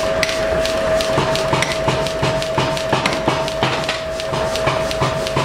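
Hammer blows on a red-hot steel bar on an anvil, struck at a steady rate of about three a second, with a steady hum beneath them.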